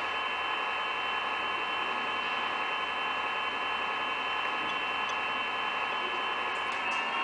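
A small electric motor running: a steady whine of several high tones over a hiss, shifting slightly in pitch near the end.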